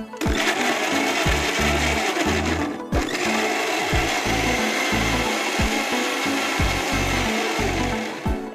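Electric mixer grinder running with a stainless-steel jar, grinding soaked dates and banana into a fine paste. It stops briefly about three seconds in, then runs again until near the end.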